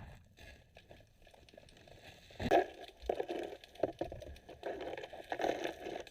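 Muffled underwater handling noise, likely a diver working on the seabed: after a quiet start comes a sharp click, then scattered clicks and scraping, rustling bursts.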